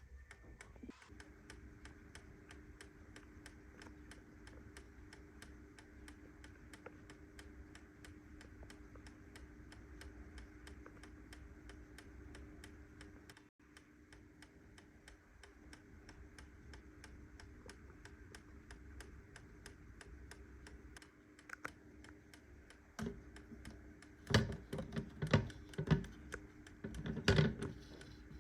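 Small 8-day grandfather clock movement (Schmid mini) running, its escapement giving a fast, even ticking. Louder irregular knocks come in near the end.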